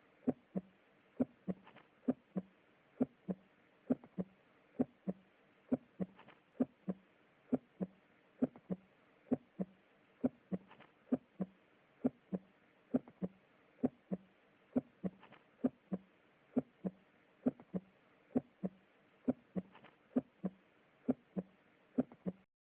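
Normal heart sounds recorded through a stethoscope: a steady lub-dub, the first and second heart sounds in regular pairs at about 65 beats a minute, with no murmur. The recording cuts off just before the end.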